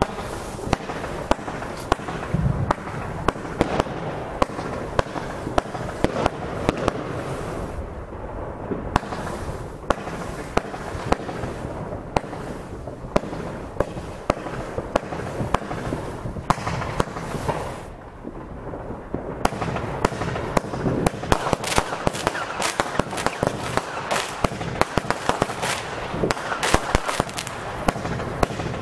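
Pyro Motion 'Nico' firework cake firing: a dense, continuous run of hissing and crackling with many sharp pops. The sound thins out briefly twice, about eight and eighteen seconds in.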